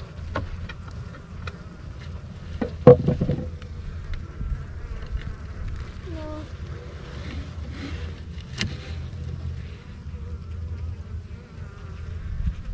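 A cluster of honeybees buzzing steadily around comb being cut out by hand, with a few scattered clicks and one sharp knock about three seconds in.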